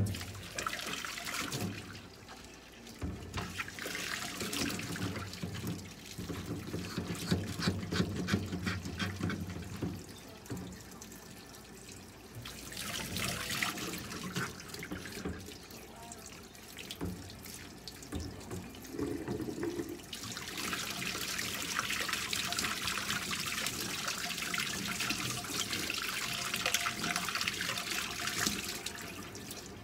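Tap water running in a thin stream and splashing into a bucket in a stainless steel sink as a cat is rinsed under it, washing the surgical site. The splashing grows and fades in stretches, heaviest and most even over the last third.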